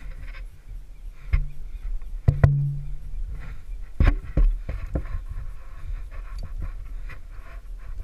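Climbing rope, carabiners and harness gear handled against an aspen trunk: a series of sharp knocks and clicks, with a short low hum about two seconds in.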